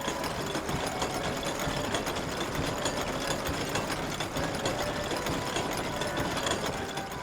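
Many hollow bells shaken together in a dense, rapid clatter, with short scattered ringing tones over a low rumble.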